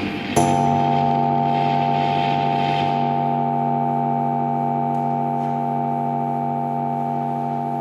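A held musical chord starts abruptly with a click about half a second in, then rings on steadily with several pitches, fading only slightly.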